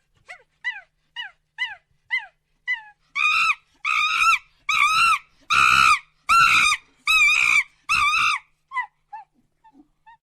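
A monkey calling in a bout: short falling calls about two a second build into seven louder, longer calls, each about half a second, then trail off into a few faint short calls near the end.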